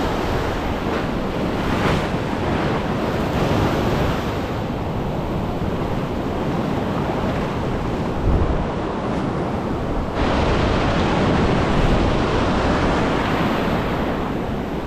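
Ocean surf breaking and foamy wash running up and back over the sand, with wind buffeting the microphone. A louder surge of wash comes in about two-thirds of the way through.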